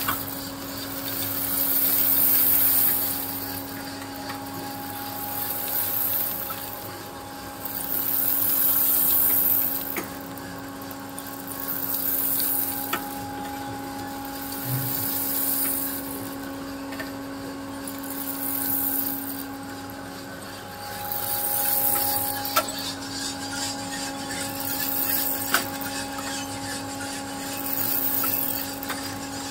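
Small coffee roasting machine running: a steady motor hum under a hiss that swells and fades about every three seconds, with a few faint clicks.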